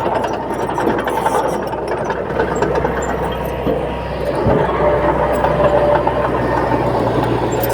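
Heavy diesel earthmoving machinery running steadily at a land-fill site, with one low thump about four and a half seconds in.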